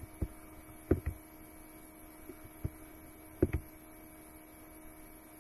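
A handful of short knocks and clicks from hands handling the computer at the desk, loudest about a second in and twice at about three and a half seconds, over a faint steady electrical hum.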